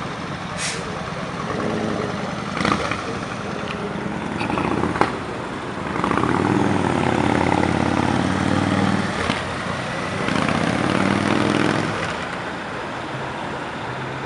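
Motorcycle engines pulling away and passing in street traffic, loudest from about six to twelve seconds in as a bike revs up through the gears. There is a single sharp click about five seconds in.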